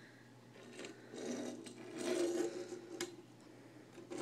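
A small die-cast toy fire truck pushed across a wooden tabletop, its wheels rolling and scraping on the wood in two short pushes, with a light tap about three seconds in.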